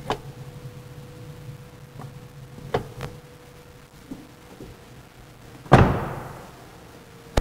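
Freightliner truck cab door slammed shut about two-thirds of the way through, a single loud bang that rings out, after a few light clicks and knocks from inside the cab. A steady low hum runs underneath.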